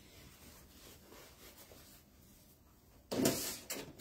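Faint room tone, then two short rustling, rubbing handling noises near the end as supplies are moved about off to one side.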